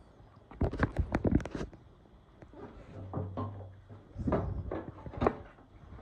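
Workshop handling sounds: two quick runs of knocks and clatters, as of metal tools or motorcycle parts being picked up and set down, about a second in and again near the end.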